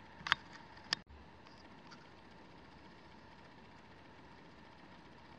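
Two short sharp clicks about two-thirds of a second apart, then faint steady hiss with a thin steady tone.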